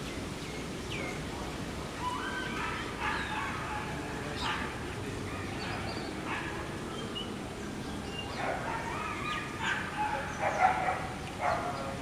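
Flameback woodpecker giving loud, hoarse calls in repeated bursts. The calls start about two seconds in and are loudest near the end.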